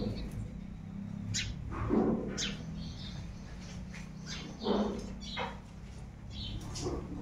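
Cow-shed ambience: short high chirps from small birds repeat every second or so over a steady low hum. Two louder short low sounds come about two seconds and about four and a half seconds in.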